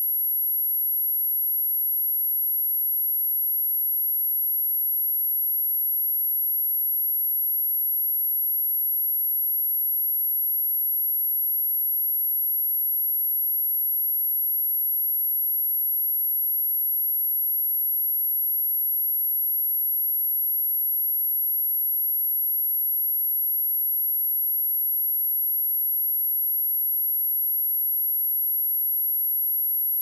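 A pure 11,574 Hz sine-wave test tone: one very high, unchanging pitch held steady. It is a speaker test and speaker-cleaning tone.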